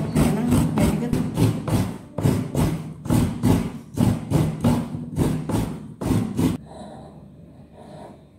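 A steady rhythm of knocks, about three a second, over a low steady hum; it cuts off abruptly near the end.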